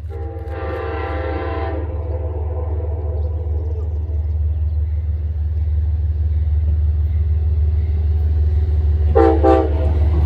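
Train horn: one long blast of about a second and a half, then a short blast near the end, over a steady low rumble that grows louder.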